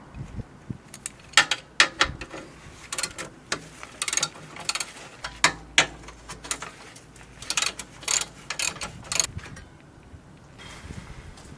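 Irregular sharp metal clicks and clanks, in small clusters, from hand tools and steel parts being worked during disassembly of a manure spreader's drive gearing.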